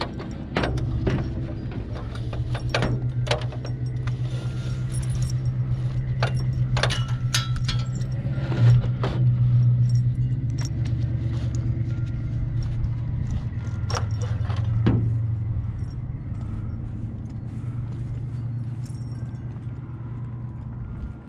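Metal clicks and rattles from a ratchet tie-down strap buckle and a van ladder rack as a strap is tightened, over the steady hum of an idling vehicle engine.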